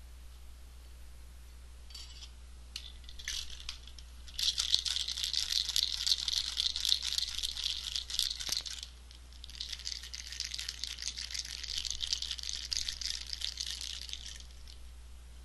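Ice cubes shaken hard in a cocktail shaker: a rapid, continuous rattle in two bouts of about four and five seconds, with a short break between. A few clinks of ice going in come before it.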